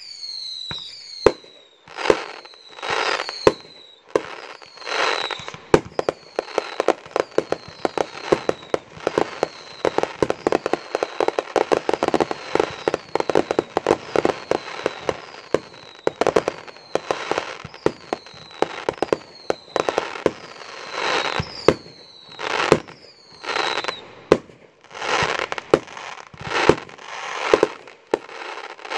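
Backyard consumer fireworks finale: aerial shells fired in rapid succession from one spot, with sharp bangs, dense crackling, and a string of whistles that fall in pitch. The volleys come thickest in the middle and thin out into separate bangs near the end.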